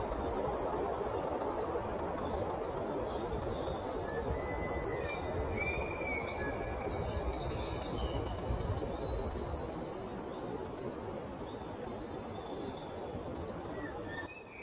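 Nature ambience: a steady high insect drone with short repeated chirps, a few bird calls, and an even rushing noise underneath.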